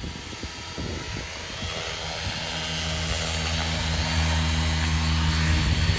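Align T-Rex 550L electric RC helicopter's rotor and motor during a descent, growing louder as it comes in; a steady low rotor hum sets in about two seconds in.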